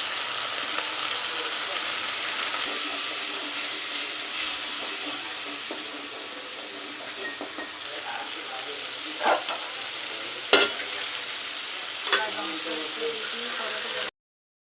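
Food frying in hot oil in a pan: a steady sizzle, with sharp clicks of a utensil against the pan three times in the second half. The sound cuts off suddenly near the end.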